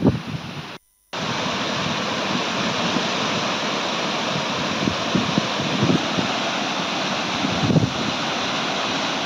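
A waterfall swollen with floodwater from heavy rains, rushing steadily over rock ledges. About a second in, the sound cuts out briefly before the rush of water starts.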